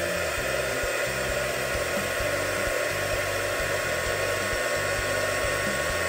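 Small handheld heat gun running steadily, its fan blowing with a thin whine over the whir, as it heats heat-shrink tubing on wires.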